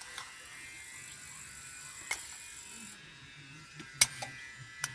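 A metal spoon clinking against a pot as tablespoons of sugar are added to tomato juice: sharp clinks about two seconds in, four seconds in and near the end, over a faint steady hum and a hiss that stops about three seconds in.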